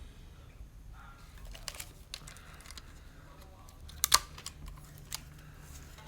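Small mechanical clicks from a Zenit 12XP film camera being handled, scattered through, with a sharp double click about four seconds in.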